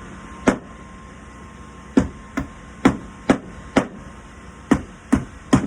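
A hammer driving and clinching nails through a hinge into a wooden door: one blow, a short pause, then a steady run of about eight blows roughly two a second.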